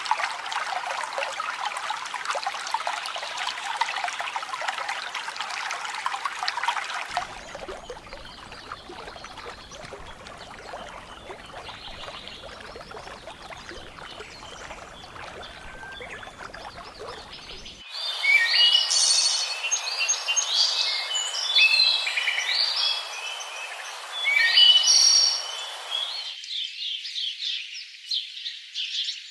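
Nature ambience in spliced sections: a steady hiss, then a duller steady rush with a trickling, watery quality, then several birds chirping and singing loudly in quick, varied notes from a little past the middle.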